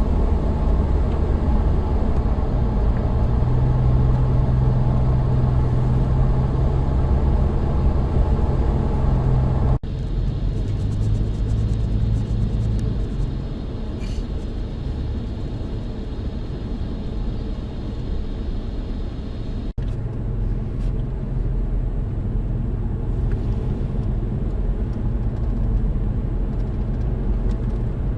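A car driving, with a steady low engine and road rumble. It breaks off sharply twice, at about ten and twenty seconds in.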